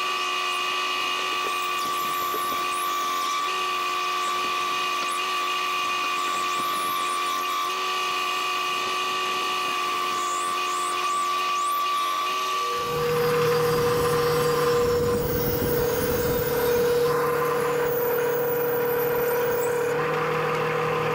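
Bandsaw running and cutting an end-grain wooden block, a steady mechanical whine with several held tones. About two thirds through the sound shifts and gets a little louder, with a stronger low hum.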